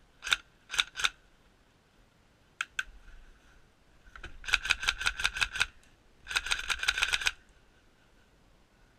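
Airsoft rifle firing: three sharp single shots, then two more, then two full-auto bursts of about a second each at roughly eight shots a second.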